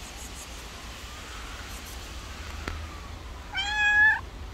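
A tabby-and-white cat gives one meow, about two-thirds of a second long, near the end.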